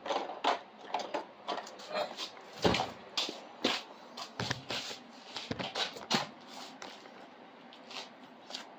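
Irregular rustling, scraping and knocking of packaging being handled while a 3D printer is unpacked. The short, uneven sounds come several times a second.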